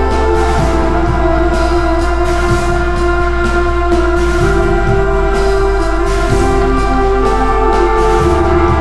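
Background music: sustained chords that change every second or two over a steady beat.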